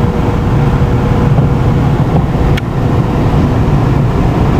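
Steady low rumble of a car's engine and tyres heard inside the cabin while cruising at about 35 to 40 mph on the highway.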